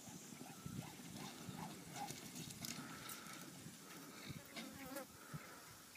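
Faint, distant hoofbeats of horses galloping on soft arena dirt during a roping run, with a few faint short higher calls over them.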